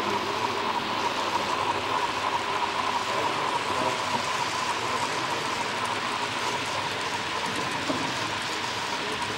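Model freight train cars rolling past along the track: a steady, dense rattle of many small wheels, with a faint steady hum underneath.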